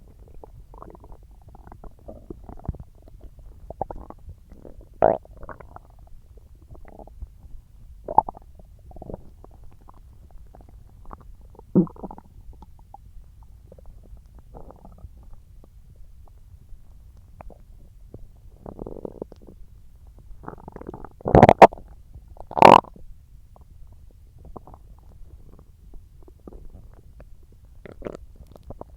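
Human stomach gurgling and rumbling while digesting watermelon: a string of short, irregular gurgles, with two loud rumbles close together about three-quarters of the way through.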